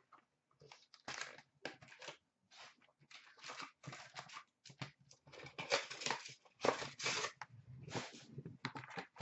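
A cardboard hockey card box being opened and its wrapped packs handled: a quick, irregular run of short rustles, scrapes and tearing sounds of cardboard and pack wrappers.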